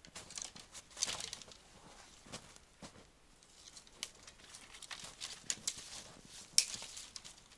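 Boots crunching in snow and dry sticks cracking and rustling as branches are handled and laid over a hole, in irregular sharp crackles, the loudest about a second in and near the end.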